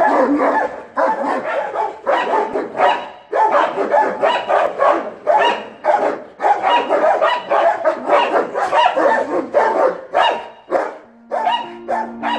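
Dogs barking loudly in quick, repeated barks, with a snarl-like edge. Music comes in near the end.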